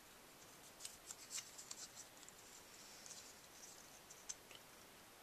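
Faint rustling and small ticks of punched cardstock pieces being handled and pressed together by fingers, in bunches about a second in and again past the halfway point.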